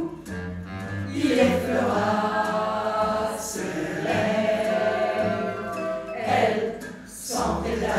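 Choir singing, several voices together on long held notes.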